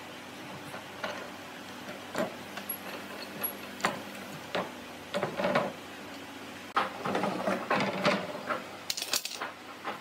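Steel pipe clamps being loosened and taken off a glued-up pine board panel: irregular clicks, clanks and rattles of the clamp jaws and pipes, coming thick and fast in the last few seconds.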